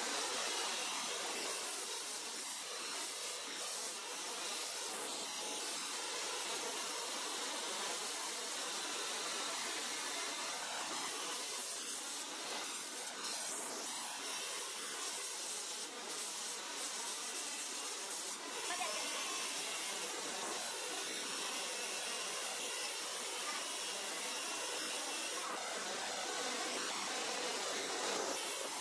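Abrasive belt grinder running with a steel knife blade pressed against the belt: a steady hiss of metal being ground.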